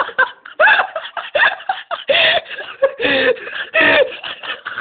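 A person laughing hard in quick, rising-and-falling pitched bursts, about three to four a second.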